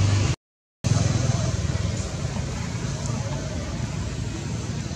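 Steady low rumble and hiss of outdoor background noise. It drops out to dead silence for about half a second near the start, then carries on a little quieter.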